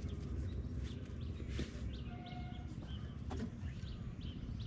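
Small birds chirping in short, repeated calls over a steady low rumble, with two sharp clicks, about a second and a half in and again past three seconds.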